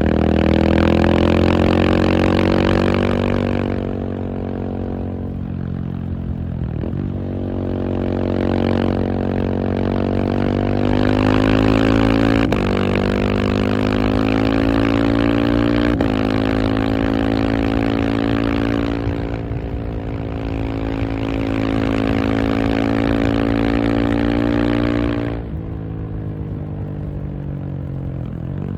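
KTM 690 SMC R's single-cylinder engine pulling hard, its pitch climbing through the gears with a short dip at each of three or four upshifts. It then holds a steady pitch for several seconds before the throttle closes near the end and the engine note drops.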